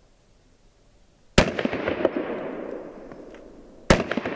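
Two pistol shots about two and a half seconds apart. Each rings out with a long echoing tail that has smaller cracks in it.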